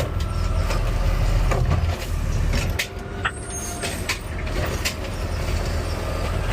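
Garbage truck's diesel engine running with a steady low rumble, heard from inside the cab, with scattered clicks and knocks and a brief high squeal about three and a half seconds in.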